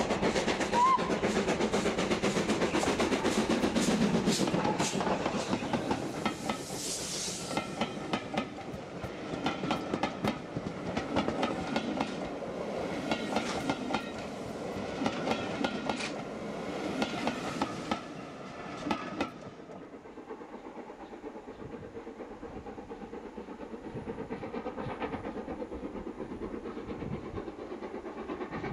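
Steam locomotive hauling a train of coaches close past: loud exhaust as the engine goes by, then the coaches' wheels clicking over the rail joints. After an abrupt change about two-thirds of the way in, a more distant steam train is heard working with steady, even exhaust beats.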